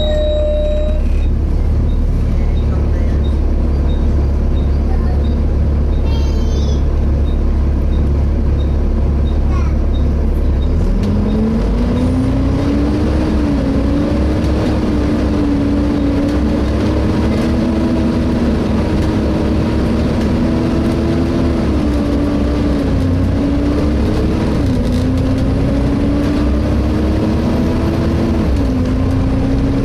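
Inside a Volvo B7TL double-decker bus: the six-cylinder diesel runs with a steady low drone at first. About eleven seconds in, the bus pulls away and a drivetrain whine rises in pitch, dropping back at each of several gear changes.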